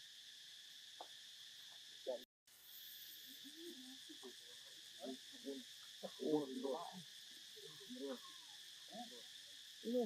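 Steady outdoor insect buzz from a chorus of insects, briefly cutting out about two seconds in. From about three and a half seconds on, short, low-pitched sounds come and go over it.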